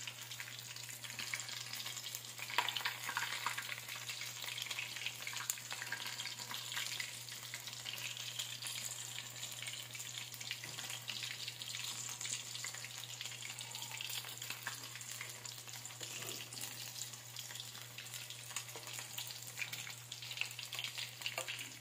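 Chicken necks deep-frying in hot oil in a metal wok: a steady sizzle full of fine crackling, with now and then the scrape of a metal spatula stirring the pieces.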